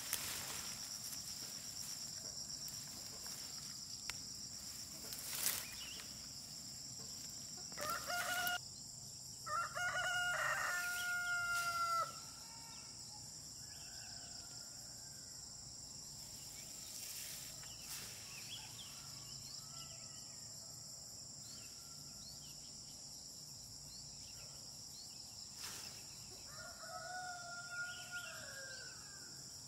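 Rooster crowing: a short note about eight seconds in, then a long held crow of about two seconds, and a fainter crow near the end. A steady high insect drone runs underneath, with a few brief snaps.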